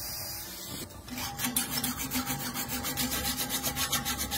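A hand file rasping back and forth on a rusty steel bar clamped in a vise, in quick, regular strokes, several a second, starting about a second in. Before that, about a second of steady grinding noise from a flap-disc grinder on the vise.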